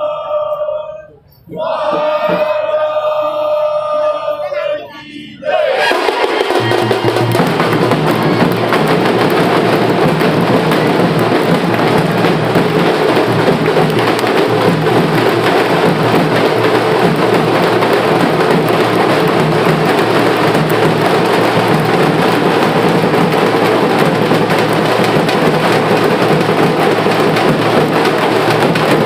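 Devotional chanting with clear held notes, briefly broken off, gives way about five seconds in to the loud, dense din of a live procession: drums beating amid a crowd.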